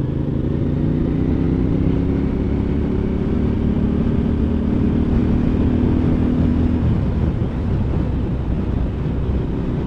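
Motorcycle engine running steadily under way, with rumble and wind noise around it. The engine note holds, then eases about seven seconds in.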